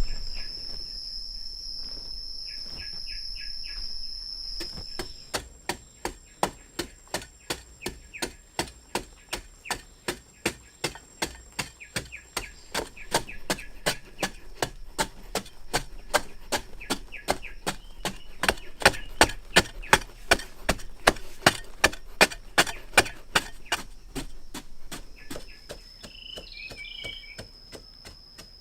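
Repeated hammer blows, evenly paced at about two to three a second and growing louder in the later part. Crickets keep up a steady high trill, and a bird chirps near the start.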